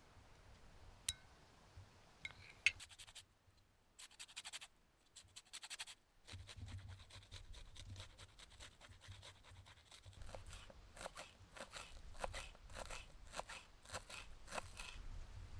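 Close-up scratching and crunching handling sounds in fast irregular runs, sparse at first with a couple of short pauses, then continuous from about six seconds in.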